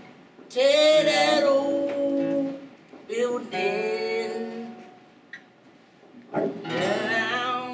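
Singing over a music track: three phrases with long held notes, separated by short pauses, the last beginning near the end.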